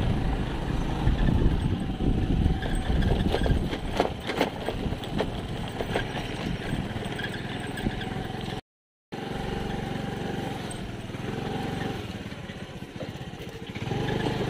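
Motor scooter's small engine running steadily as it rides over a bumpy, muddy dirt track, with knocks and rattles from the bumps. The sound drops out completely for a moment a little past halfway.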